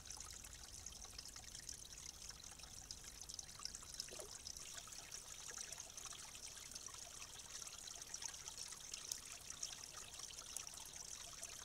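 Faint trickling of water at a beaver dam, a steady hiss with light crackles running through it.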